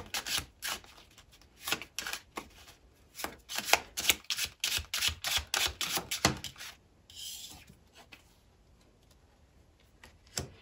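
Tarot cards being shuffled by hand: a quick run of sharp card snaps and taps that stops about seven seconds in, then one soft slide of a card.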